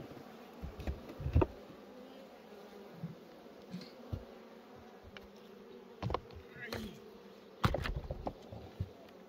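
Honey bees buzzing steadily around an open hive, with several knocks and clunks of hive frames and boxes being handled; the loudest come about a second and a half in and near the end.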